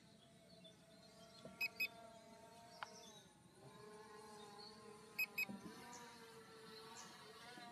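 Drone remote controller giving short high warning beeps in pairs, about every three and a half seconds, twice. A faint humming tone runs underneath and drops in pitch about three seconds in.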